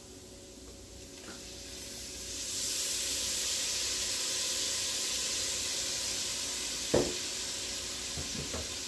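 Onions, celery and flour in a hot pot sizzling as Worcestershire sauce goes in, the sizzle swelling over the first couple of seconds and then holding steady. A single sharp knock about seven seconds in, with a couple of lighter knocks near the end.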